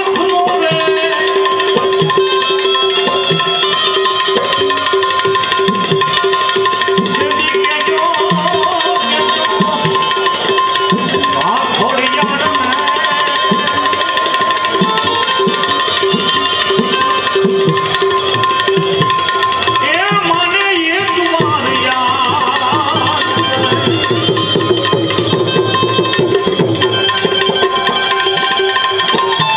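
Instrumental passage of a Gujarati devotional bhajan: tabla playing a continuous rhythm over steady held notes from a melody instrument.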